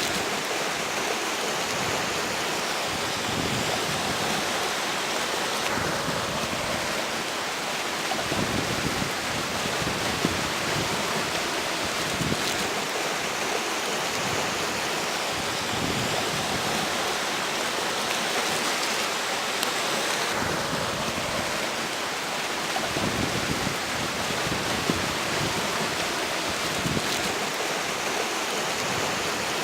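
River water rushing steadily, with strong wind blowing over it and swelling in gusts a couple of times.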